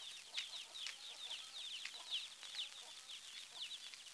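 Chicks peeping: many short, high, falling chirps, several a second and overlapping.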